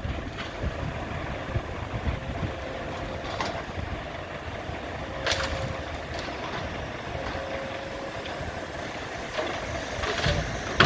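Excavator loading rubble into a skip truck: diesel engines run steadily, with a few sharp knocks and clatters of rubble, the loudest near the end.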